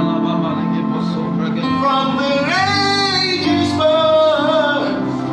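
Worship song: a singer's held, gliding notes over steady instrumental accompaniment.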